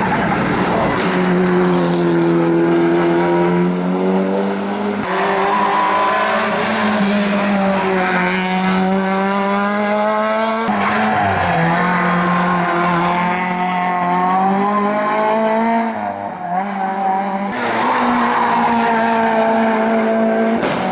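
Hillclimb race cars accelerating hard, their engine revs climbing and dropping again at each gear change, with tyre squeal.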